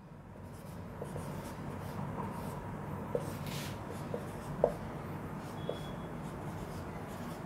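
Marker writing on a whiteboard: steady scratchy strokes with a few short squeaks as the digits are written.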